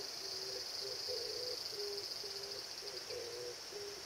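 Insects shrilling steadily in a high, even tone, over a bird's low hooting notes repeated about twice a second in a recurring phrase.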